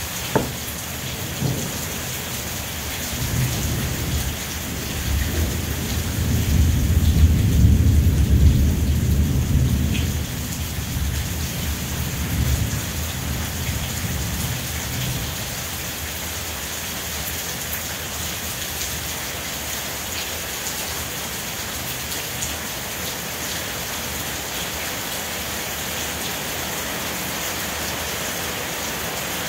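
Steady rain falling, with a long, deep roll of thunder that builds a few seconds in, peaks, and dies away about halfway through. A single sharp tap sounds right at the start.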